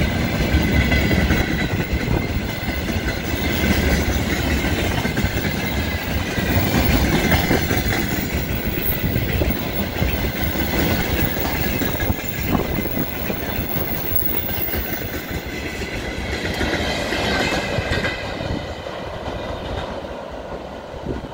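Loaded railway tank cars of a freight train rolling past close by: wheels clattering over the rail joints, with a thin high whine over it. The sound fades near the end as the tail of the train moves away.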